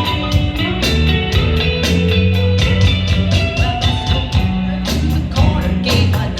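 Instrumental passage of a rock song: guitar over bass and a steady drum beat, with no singing.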